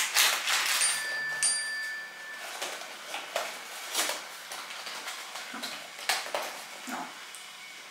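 A cardboard package being handled and picked at, with scattered light taps, clicks and rustles. About a second in there is a brief thin, high ringing tone.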